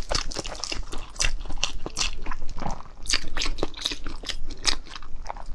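Chewing of a translucent starch dumpling with a meat filling (fen tuo), with a quick run of short mouth clicks and smacks.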